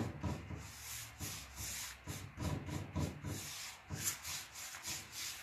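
Paintbrush stroking paint onto a wooden cabinet door, a run of quick, scratchy brush strokes one after another as a second coat goes on.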